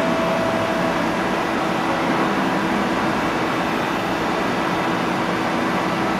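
AWEA VP-2012 CNC double column machining center running, a steady mechanical hum with a faint whine that fades about a second in.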